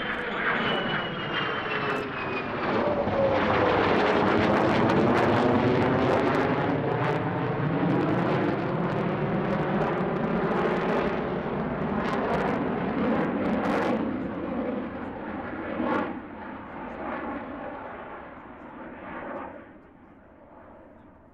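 F-22 Raptor and F-35 Lightning II fighter jets passing overhead: a loud jet roar that builds over the first few seconds, with whining tones dropping in pitch as they go by. There is a sharp crack about 16 seconds in, and the roar fades away near the end.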